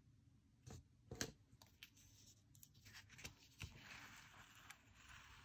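Faint handling of paper stickers on a planner page: a few light taps and crinkles, then a soft scratchy rubbing of fingertips smoothing a sticker down in the second half.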